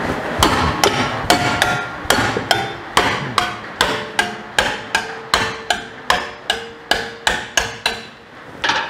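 Ball-peen hammer blows on a steel plate clamped in a bench vise, bending its edge over. The blows come about three a second, each with a short metallic ring, then stop briefly before one last blow near the end.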